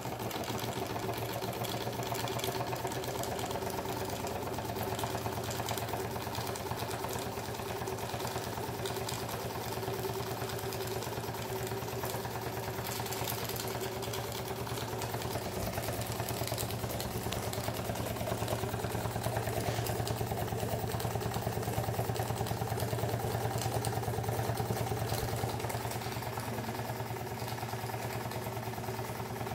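Doll vertical toy steam engine running steadily at speed, with a fast, even mechanical beat that gets a little louder past the middle.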